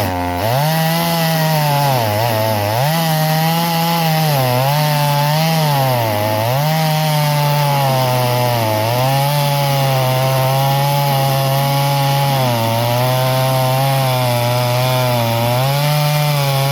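Stihl 021 two-stroke chainsaw running at full throttle while cutting wood, its engine pitch sagging again and again as it bogs in the cut and then recovering. The saw is slow in the cut and cannot really dig in.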